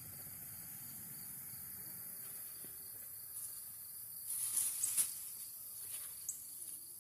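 Steady high-pitched chorus of insects such as crickets. About four seconds in, a brief rustle of leaves with a couple of sharp clicks.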